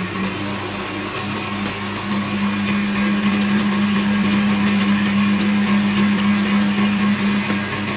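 Electric stand mixer running, its balloon whisk beating eggs in a steel bowl: a steady motor hum that grows a little louder about two seconds in.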